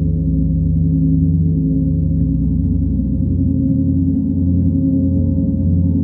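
Gongs played as a sound bath: a sustained low wash of several overlapping tones that shift slowly, with no strikes standing out.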